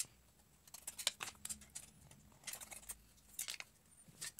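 Scissors snipping through the thin metal of a cut-open drink can: short, crisp snips in irregular small clusters.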